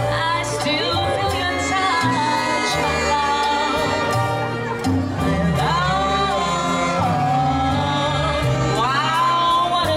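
Live Latin jazz band playing a slow number, a woman singing lead with swooping, sliding phrases over walking bass notes.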